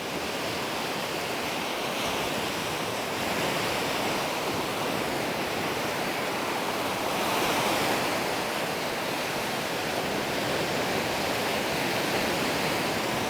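Surf washing onto a sandy beach, a steady wash of small waves that swells briefly about halfway through.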